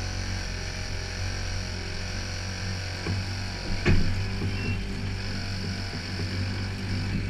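Outboard boat motor running at a steady low idle, with one sharp knock about four seconds in.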